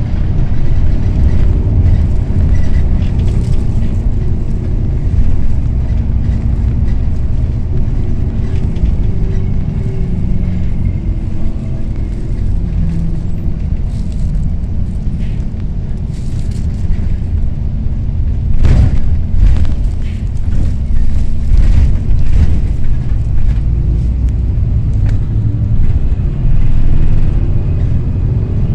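Cabin noise of a Yutong ZK6107HA coach on the move: a steady low rumble of engine and road noise, with a brief sharp knock about two-thirds of the way through.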